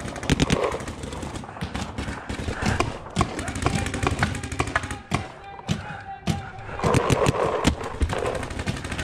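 Paintball markers firing: rapid strings of sharp pops at the start and again about seven seconds in, with scattered single pops between.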